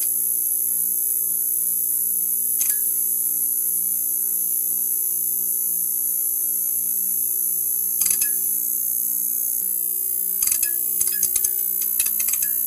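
Neon sign buzzing: a steady electrical hum with a high-pitched hiss, broken now and then by sharp crackling clicks, once a few seconds in, again past the middle, and in a quick cluster near the end.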